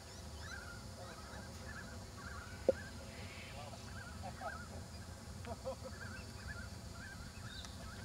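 Birds calling over and over in the background, short wavering calls coming about twice a second, with a few lower calls among them. A single sharp click comes a little before the middle.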